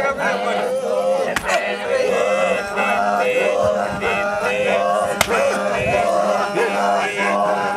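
A group of Maasai voices sings a chant together, holding notes in a steady, continuous song.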